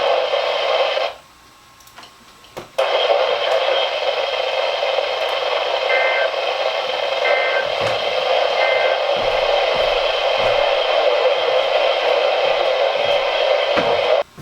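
Weather radio receiver putting out a steady static hiss. It cuts out about a second in for under two seconds, then comes back. Three short faint beeps sound in the middle.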